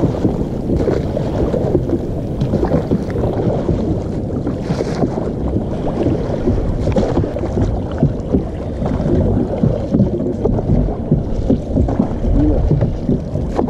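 Water splashing and rushing around a wooden fishing canoe being paddled hard at sea, with wind buffeting the microphone. The sound is a steady rough noise broken by irregular splashes.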